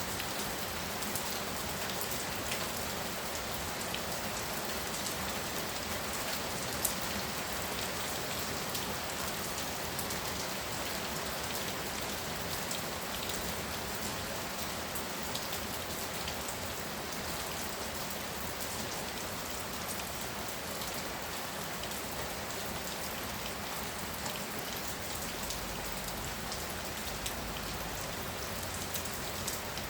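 Heavy rain falling steadily, a dense patter of drops with one sharper drop tap about seven seconds in.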